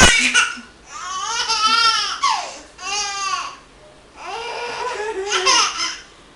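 A young child laughing hard in response to a sneeze: three long, high-pitched bursts of laughter, the last the longest.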